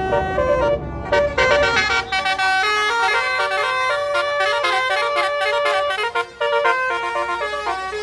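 Tour bus's basuri 'telolet' musical horn playing a quick melody of stepped notes, growing louder and brighter about a second in. A bus engine rumbles underneath at first.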